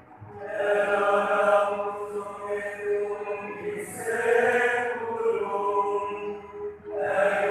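A group of voices singing a liturgical chant in long, held phrases, breaking briefly about seven seconds in before going on.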